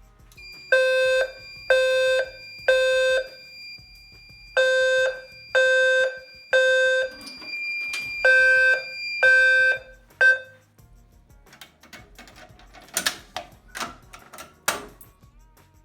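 Fire alarm horn on a Fire-Lite MS-4 demonstration system sounding the temporal-three evacuation pattern, three loud half-second blasts and a pause, over a steady high-pitched tone. The last group is cut short about ten seconds in as the alarm is silenced, followed by a few clicks.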